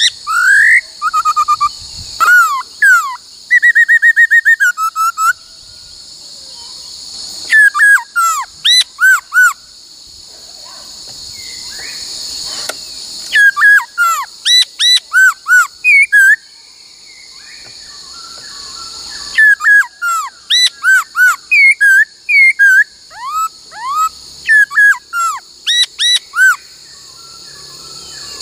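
Laughingthrush singing loud, clear whistled notes, each one sliding up and down, delivered in bouts of several with short pauses between. The first few seconds hold more varied phrases and a fast trill, and a steady high hiss runs underneath.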